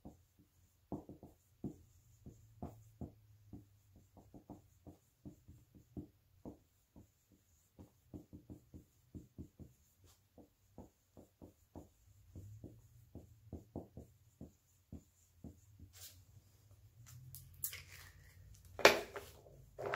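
Dry-erase marker writing on a whiteboard: a long run of short, irregular squeaks and taps as the letters are formed, stopping about 16 seconds in. A few louder clicks and a knock follow near the end.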